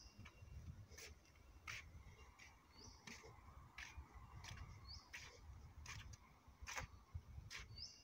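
Footsteps on a wooden boardwalk at an even walking pace, about three steps every two seconds, with a bird giving a short rising chirp three times. A low rumble from wind on the microphone runs underneath.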